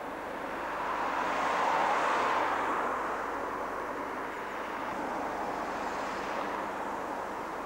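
Road traffic: cars passing on the road, an even rush of tyre and engine noise that swells loudest about two seconds in, with a second, smaller pass around five to six seconds.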